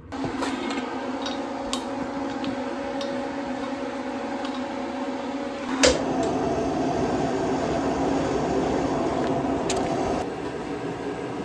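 A steady mechanical hum with a few light clicks. A sharp knock comes about six seconds in, after which the hum's pitch shifts.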